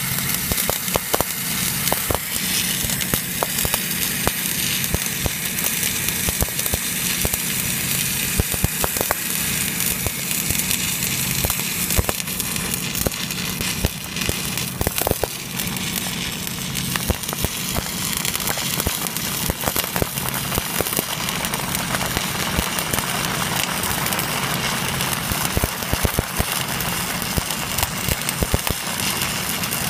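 Stick-welding arc crackling and sizzling steadily as a welding rod clamped in a TIG torch burns, with a steady low hum underneath.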